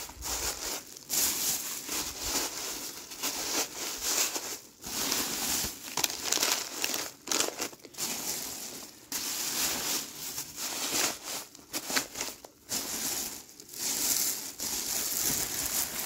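Plastic bags and film packaging, mostly LDPE with some tape and cardboard scraps, crinkling and rustling as a gloved hand crams them down into the reactor chamber. The crinkling comes in irregular bursts with short pauses.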